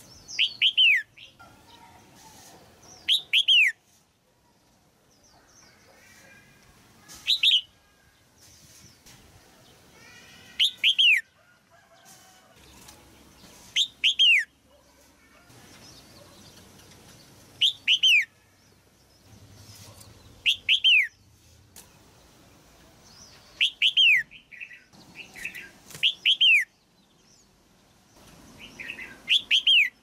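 Red-whiskered bulbul calling: short sharp notes that drop steeply in pitch, mostly in quick pairs, repeated every three to four seconds, about ten times.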